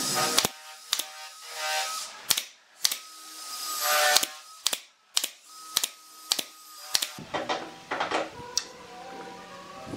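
Pneumatic nail gun firing nails into pine boards: about ten sharp shots at uneven intervals over the first seven seconds, some followed by a short hiss of air. After that, wooden boards are laid and shifted on the frame, with lighter knocks.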